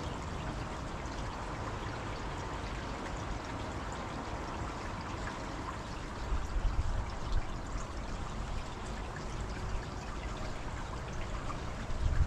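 Steady rushing of running water, like a stream, with a few low rumbles about six seconds in and again near the end.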